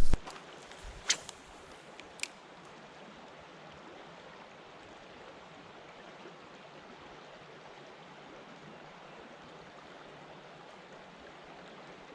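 Creek water running with a steady, even rush. Two sharp clicks about a second apart come in the first couple of seconds.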